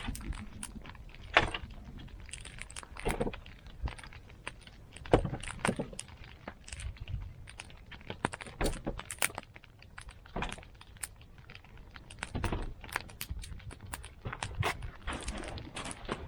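Split firewood logs being handled and stacked: irregular wooden knocks and clunks, the two loudest about one and five seconds in.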